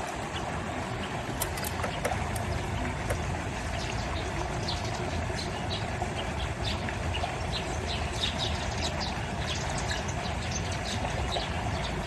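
Steady outdoor background noise with many short, high chirps scattered through it, thickest in the middle stretch.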